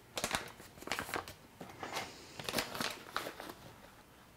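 Crinkly packet of powdered turmeric being handled and opened: a string of irregular crackles and rustles, thinning out near the end.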